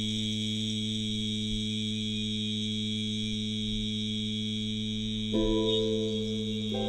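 Sustained drone of meditation background music: a held low chord with a faint high hiss that never breaks. New, higher notes enter about five and a half seconds in and again near the end.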